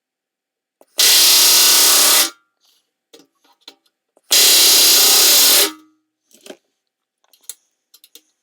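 Pneumatic rivet gun hammering an AN470 1/8-inch solid aluminium rivet against a bucking bar, in two loud bursts of just over a second each with a pause between, with faint small clicks of handling in the gaps.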